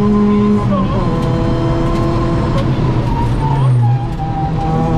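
Ford Fiesta ST rally car's 2.0-litre four-cylinder engine heard from inside the cabin, pulling hard under load. Its pitch drops at a gear change about half a second in, and near the end the note falls away briefly and changes pitch again as the driver comes off the throttle for a junction.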